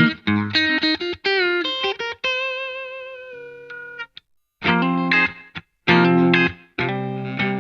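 Electric guitar, a Jcraft T-1 Telecaster with Fleor alnico pickups played through a Vox VT20X amp, playing short chopped chords. It then holds a note with vibrato that fades out about four seconds in, and after a short pause goes on with more stabbed chords.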